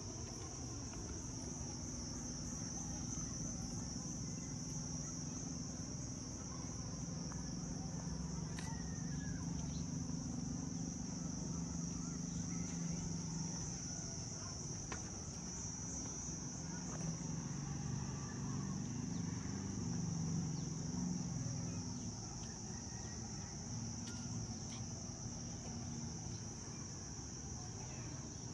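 A steady, high-pitched insect chorus that drones without a break, over an uneven low hum.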